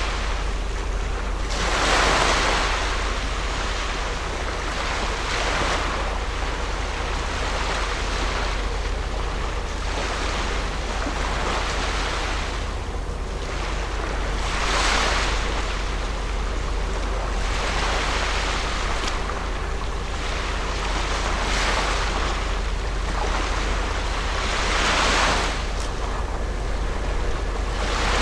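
Small waves washing onto a rocky shore, swelling and falling back every few seconds, over a steady low rumble.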